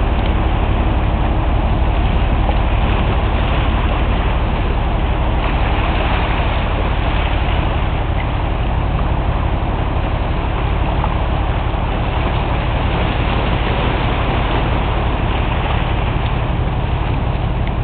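Cargo ship's engine droning steadily as the ship gets under way, over a constant rushing noise.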